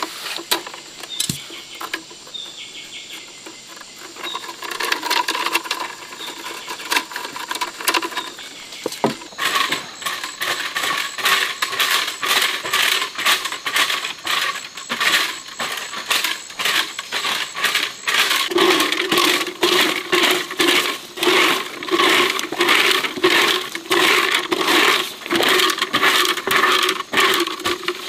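Homemade bamboo broom sweeping dry leaves over packed earth in brisk repeated strokes, about two or three a second, starting about a third of the way in. Before that, a few sharp snips and clicks as the broom's bristles are trimmed with a knife.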